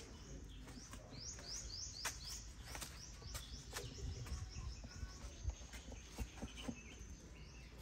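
A small bird calling: a quick run of short, high chirps, about three a second, from about one to three seconds in, then a thin, steady high note for a couple of seconds near the end. Faint clicks and a low rumble lie under it.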